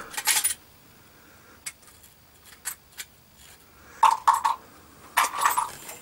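Victorinox Soldier 08 knife blade shaving arm hair: a few short, dry, crackling scrapes, the loudest two about four and five and a half seconds in, with a few light ticks between them.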